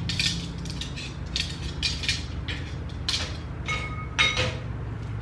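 Dishes clinking and clattering as they are lifted out of a dishwasher's wire rack: a run of small knocks, with a dish ringing briefly about four seconds in, over a steady low hum.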